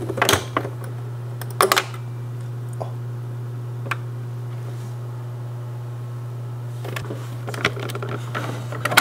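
Clicks and taps from handling a hotel-room coffee maker: single sharp clicks in the first few seconds, then a quick run of clicks near the end, over a steady low hum.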